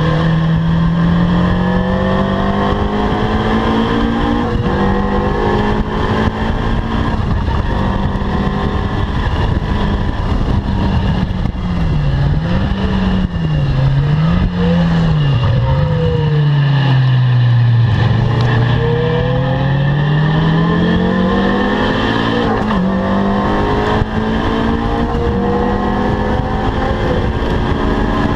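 Caterham R300's four-cylinder engine running hard on track: its pitch holds, then drops in a few quick dips with throttle blips about halfway through as it downshifts, and climbs steadily again as the car accelerates out.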